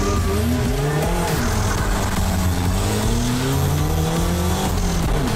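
The car's small 800cc turbocharged engine under hard acceleration. Its pitch drops at a gear change about a second in, then climbs slowly and steadily as the car gathers speed.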